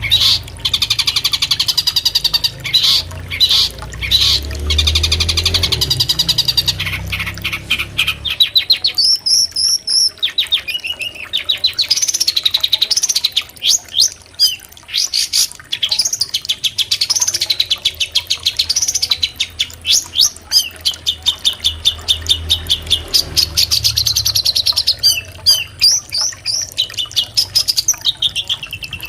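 Long-tailed shrike (cendet) singing a fast, varied chattering song of rapid high chirps and trills, with a low rumble underneath at times.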